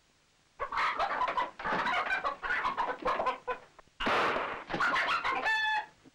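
A hen clucking in two rapid, busy runs, the second ending in a short high-pitched squawk.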